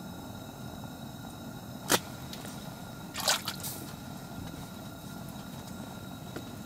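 A single sharp click about two seconds in, then a brief wet splash and dripping as a perch on the line is lifted from the ice hole and handled, over a steady low hum in the ice shelter.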